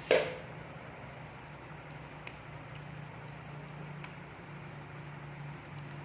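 A sharp knock at the start, then a few faint clicks from handling the soldering iron and its cord on the bench, over a steady low hum.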